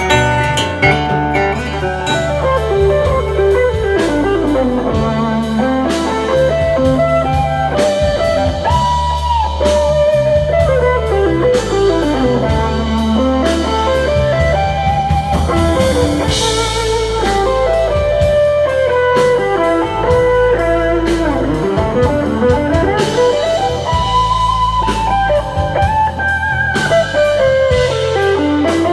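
Live band music: an electric guitar plays fast lead runs that sweep down and back up, over bass guitar and a drum kit.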